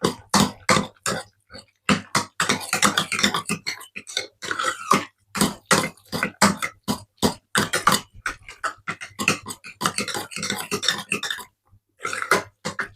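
Hand potato masher pounding a thick filling of vegetables, tinned potatoes and gravy in a pan: rhythmic wet strokes about two or three a second, with a brief pause near the end. Instant mashed potato is being worked in to thicken the sloppy filling.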